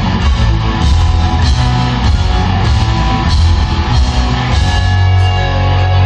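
Live rock band playing loud, with distorted electric guitar, heavy bass and drum kit.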